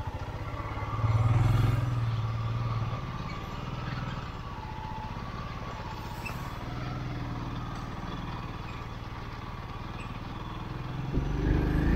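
Motorcycle engine running at low speed, louder for a couple of seconds about a second in as it is ridden through a shallow stream crossing, then steady along a gravel track.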